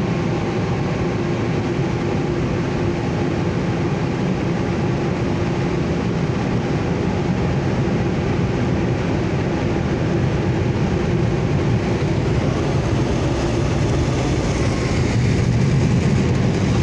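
Automatic car wash air dryer blowers running, heard from inside the car: a steady rushing of air over a low hum that grows louder near the end.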